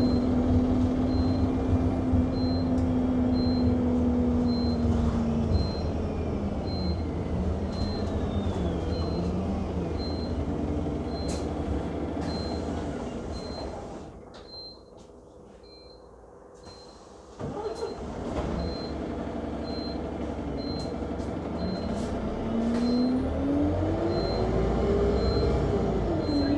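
Interior of an Alexander Dennis Enviro200 MMC bus: a short, high electronic beep repeats about once a second, non-stop, over the engine and road noise. The engine sound dies down as the bus slows and then drops away almost completely for a few seconds about halfway through, returning abruptly. It climbs in pitch as the bus pulls away near the end.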